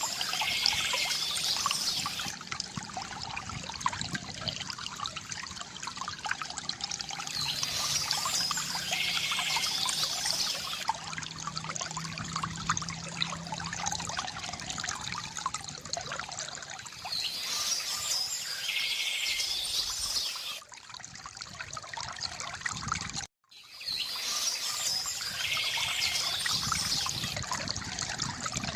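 Water trickling and gurgling from a bamboo fountain, with bird song in four short bursts spaced evenly apart. All sound cuts out for a moment about three-quarters of the way through.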